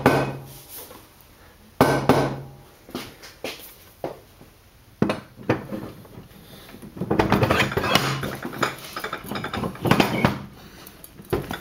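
Cast iron end cap of a bench vise being handled and test-fitted onto the vise body by hand: a few sharp metal knocks, then a run of rapid clinks and scraping from about seven seconds in, as the ground part is tried for fit.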